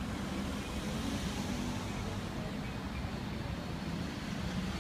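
Cars driving through a city intersection, engine and tyre noise over a steady low rumble.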